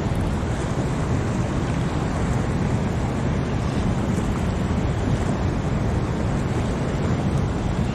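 Steady rush of fast, turbulent water pouring through a lake spillway inlet, mixed with wind buffeting the microphone.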